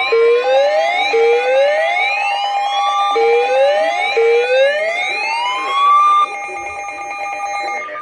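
Emergency alert siren tones: rising whoop sweeps repeat about once a second, a few longer ones climbing higher, over a steady alert tone that cuts off just before the end.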